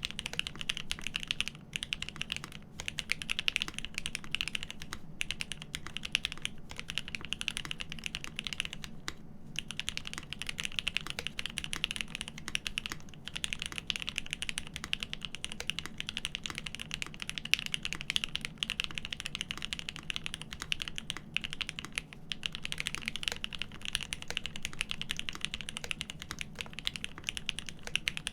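Continuous fast typing on a custom mechanical keyboard fitted with Cherry Top SP Star switches on 62g springs, an aluminium plate and Poron plate foam: a dense, steady run of key clacks with brief pauses between bursts.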